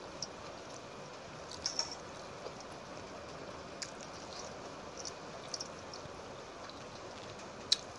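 Fingers mixing watery soaked rice (panta bhat) in a steel plate and taking mouthfuls: scattered small, sharp wet clicks over a steady hiss, the sharpest near the end.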